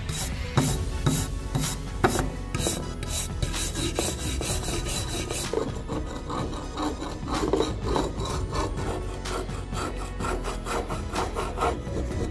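Wire brush scrubbing a corroded aluminum waffle cake pan plate in rapid repeated strokes. About six seconds in it gives way to a metal scraper blade scraping crud off the plate's grid and hinge in short strokes.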